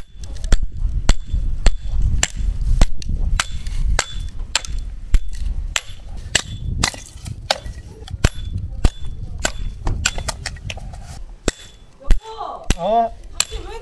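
Firewood being split by hand: a fast run of sharp chopping strikes into wood, about two or three a second. A voice comes in briefly near the end.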